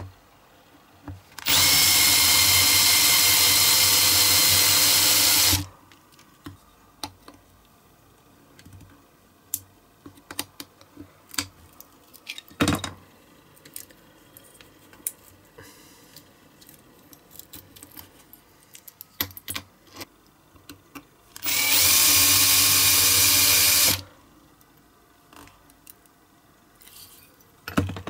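Power drill drilling out a rivet in a diecast model's metal baseplate, with a steady whine. It runs twice: for about four seconds near the start, then for about two and a half seconds near the end. Small clicks and taps of the metal model being handled come in between.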